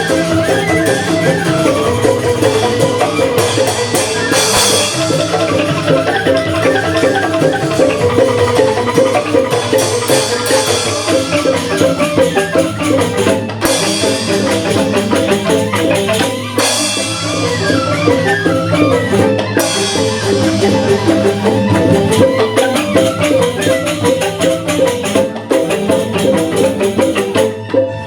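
Balinese joged bumbung ensemble playing: bamboo xylophones in fast, dense interlocking patterns over a low pulse, with a high hissing percussion that swells up several times.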